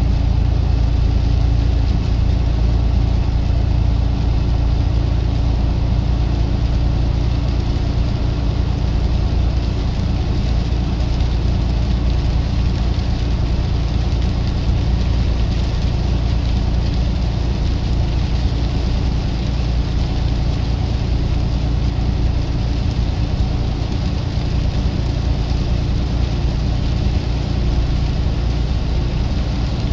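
A truck's engine running steadily: a constant low drone with an even hiss above it, unchanging throughout.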